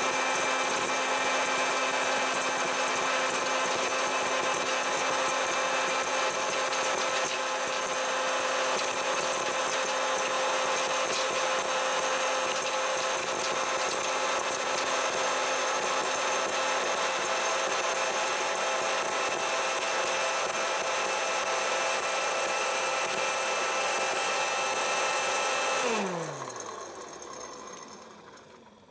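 Hot-air popcorn maker running: a loud, steady fan and motor drone. Near the end the motor winds down, its hum falling in pitch and fading away.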